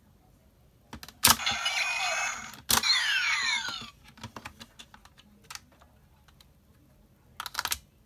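DX Lost Driver ver.20th toy transformation belt handled with plastic clicks. About a second in, a click sets off a short electronic sound effect from its speaker, and a second click near three seconds sets off another with sweeping falling and rising tones. Scattered small plastic clicks and rattles follow as it is turned in the hands.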